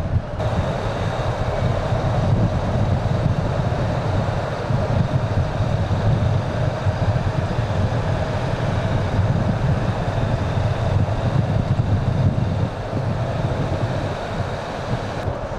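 Mercedes-Benz Citaro city bus driving along the road: steady engine and tyre noise.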